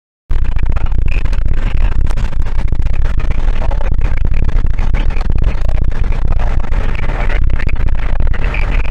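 Loud radio static, a dense hiss and crackle, cutting in abruptly out of dead silence just after the start.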